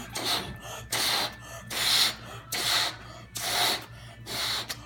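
A person making a run of about six sharp, breathy gasping huffs, roughly one a second, as deliberate silly noises.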